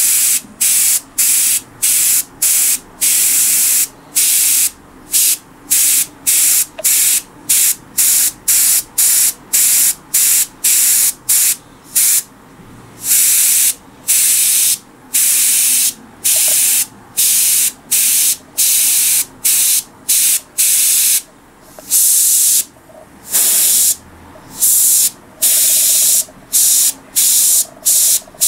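Airbrush spraying paint in short hissing bursts, about one or two a second, as the trigger is pressed and released, with a few longer bursts along the way: black being sprayed freehand to shape flames on a motorcycle fairing panel.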